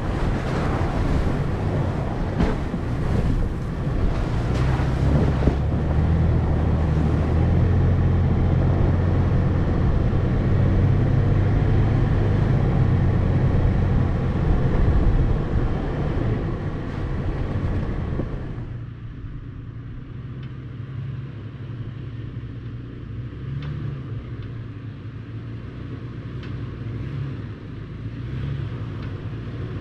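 Toyota FJ Cruiser's 4.0-litre V6 running at low speed as the truck drives up a rough dirt forest road, with scattered knocks in the first few seconds. About 18 seconds in the sound suddenly drops and turns duller, the engine still running.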